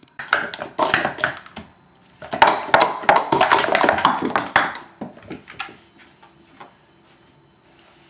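Plastic sport-stacking cups clattering rapidly against each other and the mat as they are stacked and unstacked, in two bursts of quick clicks, then a few scattered knocks as a cup tumbles away.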